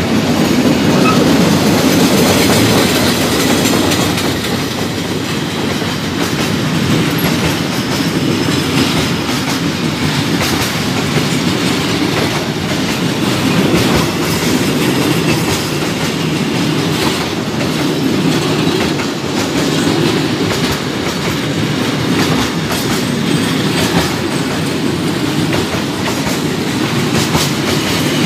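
Freight train wagons rolling past close by: a steady, loud rumble with repeated clacking of the wheels over the rail joints.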